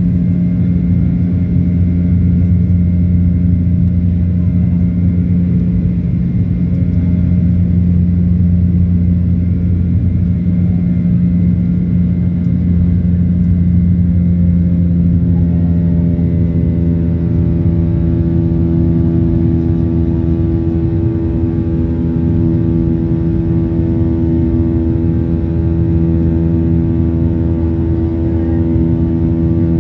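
Jet airliner cabin noise in the climb after takeoff: a loud, steady rumble and hum of engines and airflow. About halfway through, a set of steady higher tones joins the rumble and holds.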